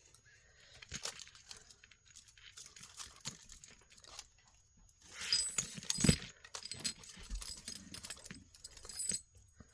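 Small metal jewelry pieces clinking and jingling as a pendant and chain are handled, with scattered light clicks and rustling. The jingling is loudest from about halfway through.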